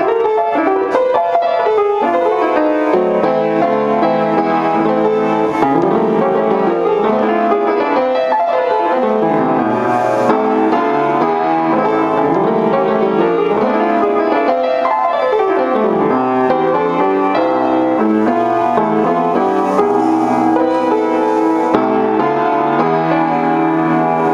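Piano music playing steadily throughout.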